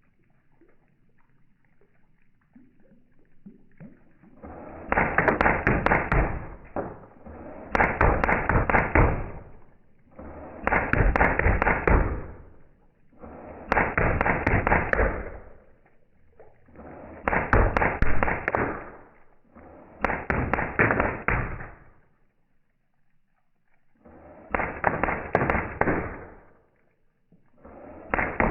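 ASG Scorpion Evo airsoft electric gun firing repeated bursts of rapid shots. There are about seven bursts, each lasting one and a half to two seconds, with short pauses between them, and another starts at the very end.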